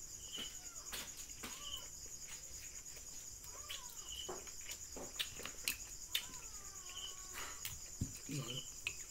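A faint, steady high trill of night insects, with a short chirp repeating every second or so. Scattered small cracks and clicks come from crab shells being broken open by hand.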